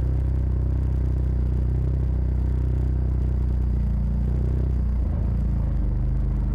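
Side-by-side UTV engine running at a steady speed with a low drone. About five seconds in, the engine note changes as the speed shifts.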